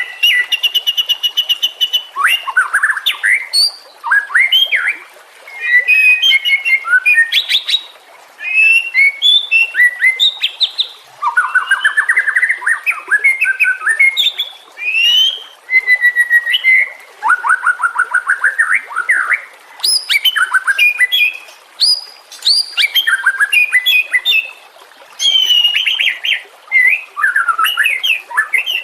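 White-rumped shama singing a long, varied song: quick phrases of clear whistles, rapid trills and chattering notes, broken by brief pauses every couple of seconds.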